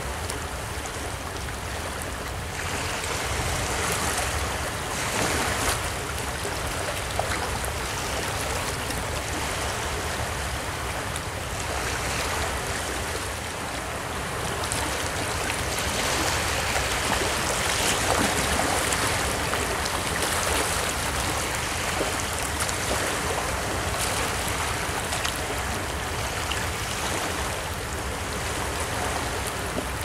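Small sea waves washing in and out among boulders on a sandy shore, a continuous rushing wash of water that swells and eases every few seconds.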